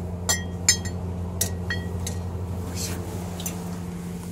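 Glassware clinking several times in short sharp strikes that ring briefly, most of them in the first two seconds, over a steady low electrical hum.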